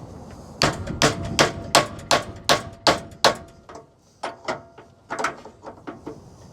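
Hammer blows on metal, a quick run of about eight sharp ringing strikes at roughly three a second, then a few lighter knocks. They are driving a go-kart clutch off the engine shaft, where overheating has seized it.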